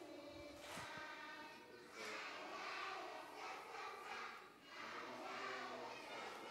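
A group of voices singing together, fairly faint, in phrases of a second or two. A couple of soft knocks come about half a second in.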